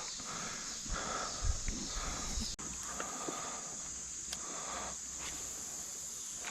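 Steady high-pitched insect drone, with a few soft knocks and a sharp click in the first half.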